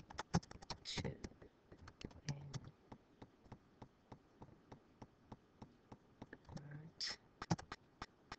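Typing on a computer keyboard: a quiet run of quick, irregular key clicks with short pauses between words.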